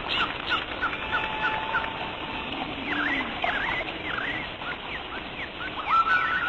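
Birds chirping: a quick run of short high chirps, then varied swooping calls, and near the end a few longer whistled notes.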